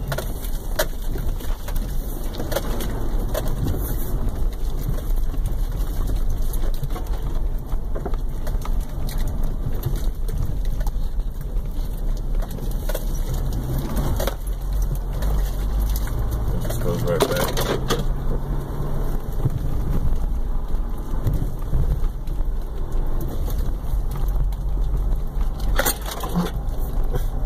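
Heard from inside a 2003 Subaru Outback driving a narrow, brushy dirt trail: a constant low rumble from the car jolting over rough ground, with frequent cracks and scrapes as brush and branches hit and drag along the body. The loudest scrapes come about two-thirds of the way through and near the end.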